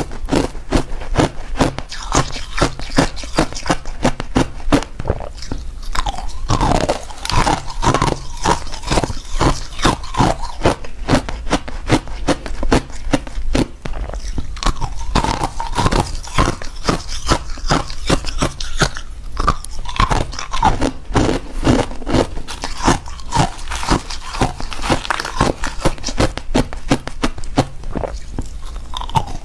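Crushed ice being bitten and chewed close to a clip-on microphone: a steady run of sharp, crisp crunches, about two a second.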